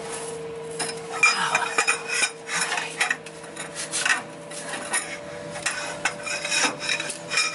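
Socket ratchet clicking and rasping in irregular short bursts as a tight track bar bolt is turned, with metal clinks of the socket and tools.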